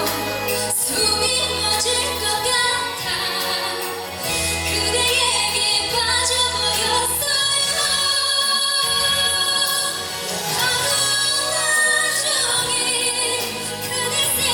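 A pop ballad with singing over a backing track, with steady bass notes underneath.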